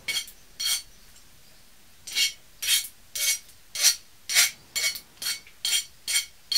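Hand file rasping across the cut end of a copper brake pipe to take off the burr, in a dozen or so short strokes about two a second, with a pause of about a second near the start.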